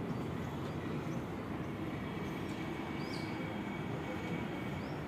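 Steady outdoor background rumble, with a brief high chirp about three seconds in and another near the end.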